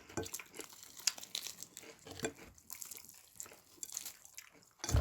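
Eating fried chicken up close: irregular small wet clicks and crunches of chewing, with light crinkling.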